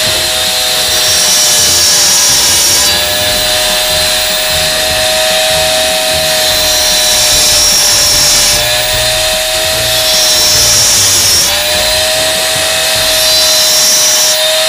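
Small electric cut-off tool running with a steady motor whine while its abrasive disc grinds into the metal tube body of a cordless soldering iron. It cuts in several passes, each bite bringing a harsh high hiss and a slight dip in the motor's pitch.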